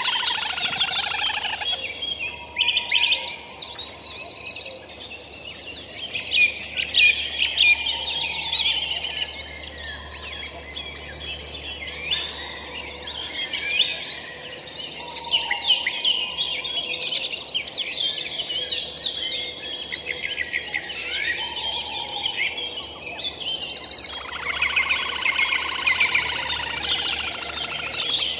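Several songbirds singing at once in riverside woodland and reeds: a dense, overlapping mix of fast trills and short whistled phrases.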